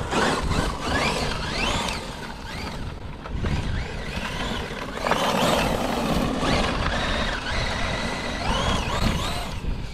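Electric RC trucks' motors whining, the pitch rising and falling again and again as they speed up and let off, over a rough rushing noise that swells about five seconds in.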